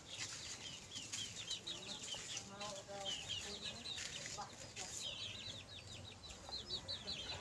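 Chickens calling: a long run of short, high, falling peeps from young birds, with a few low clucks mixed in about two and a half seconds in.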